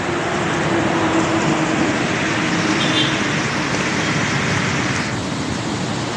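Heavy rain and road traffic making a steady, dense noise, with an engine's low hum under it that fades out about two-thirds of the way through.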